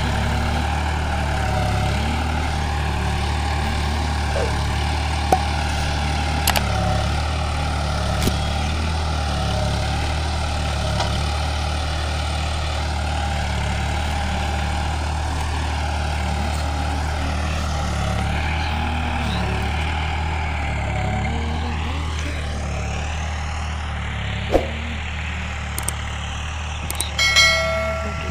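New Holland 55 hp tractor's diesel engine running steadily under load while pulling a ridger through the soil, with a few light clicks and rattles. A short chime sounds near the end.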